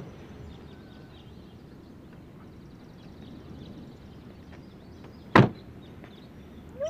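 An Audi coupe's door slammed shut once, a single sharp bang about five seconds in, over a quiet outdoor background with faint chirps.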